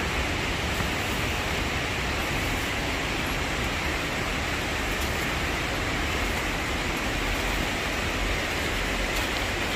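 Steady rushing outdoor noise, a low rumble under an even hiss, with no breaks or separate sounds.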